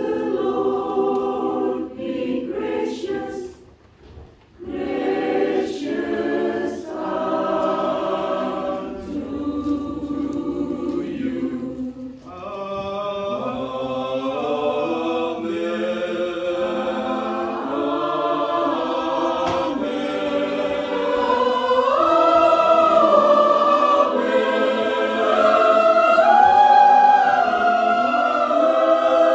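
Mixed choir of men's and women's voices singing a sacred anthem in parts. The singing breaks off briefly about four seconds in, then carries on and swells louder and higher toward the end.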